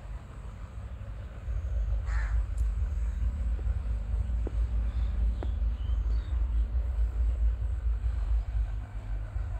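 Low, gusty wind rumble on the phone's microphone, growing louder after about a second and a half. One short harsh call cuts through about two seconds in, and faint high chirps follow near the middle.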